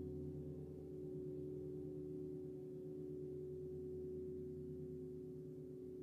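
Piano notes held and ringing on quietly, a few low pitches sustained together and slowly fading.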